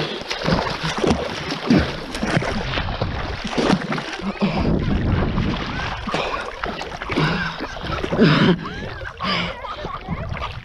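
Lake water splashing and sloshing close against the microphone as a swimmer strokes along at the surface, with short breathy gasps from the swimmer now and then.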